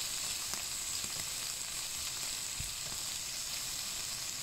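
Sliced onion, garlic and ginger sizzling in hot oil in a non-stick wok alongside frying chicken liver and gizzards, a steady hiss with a spatula stirring through now and then.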